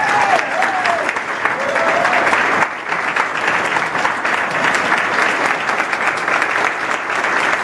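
Audience applause from a crowded banquet room, dense clapping throughout, with a few voices calling out over it in the first couple of seconds.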